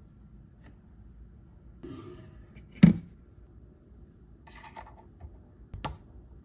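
Small steel parts being handled at a watchmaker's lathe: a sharp metallic click near the middle, a short scraping rustle, and another click near the end, as a pivot-steel rod is set into the lathe collet.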